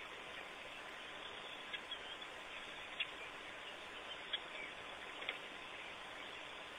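Outdoor waterhole ambience: a steady hiss with a few short, high chirps scattered through it, about two, three, four and five seconds in.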